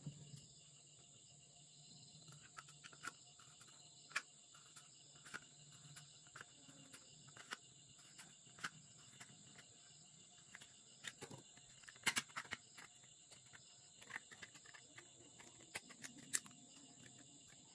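Faint steady chirring of crickets, with scattered sharp clicks and crackles of a thin plastic bottle being cut with scissors and handled; the loudest cluster of clicks comes about two-thirds of the way through.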